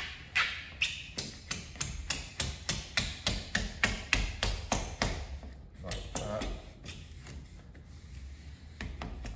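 Vinyl graphic under application tape being rubbed down by hand and worked under a van's rubber window seal: a quick run of short, scratchy strokes, about three a second, that thins out for the last couple of seconds.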